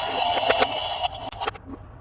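A toy's electronic sound effect playing through a small speaker, cutting off about a second in, followed by a few sharp plastic clicks from handling the toy.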